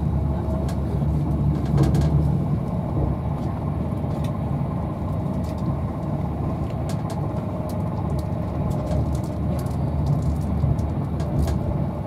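Steady low rumble and running noise inside the passenger saloon of an Avanti West Coast Class 390 Pendolino electric train travelling at speed, with a few faint clicks scattered through it.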